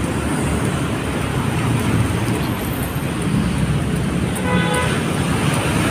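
Steady city road traffic noise: the continuous rumble of passing vehicles at a street crossing. About four and a half seconds in, a brief pitched tone sounds over it.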